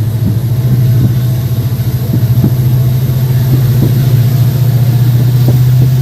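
WDP4D diesel locomotive's 16-cylinder two-stroke EMD engine humming steadily under load, heard from behind the locomotive, with a few light knocks scattered through.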